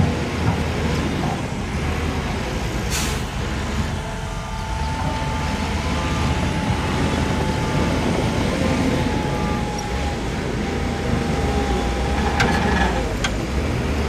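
Heavy diesel construction machinery running steadily with a low rumble and a steady whine above it. A short hiss comes about three seconds in, and a few clanks near the end.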